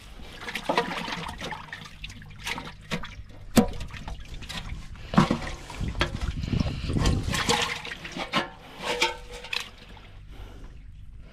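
Water sloshing and splashing inside a net-covered clay pot holding live snakehead fish as it is handled, with irregular sharp knocks among the splashes.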